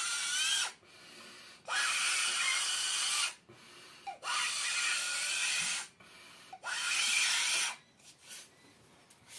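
A person blowing hard into a balloon through a straw fixed in a plastic bottle's cap, inflating it: four long puffs of rushing breath of about a second and a half each, with short pauses between them.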